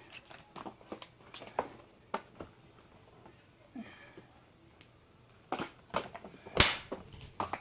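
Parts of a Dirt Devil vacuum cleaner being handled and fitted together during assembly: a run of irregular clicks and knocks, with one sharp knock about two-thirds of the way in.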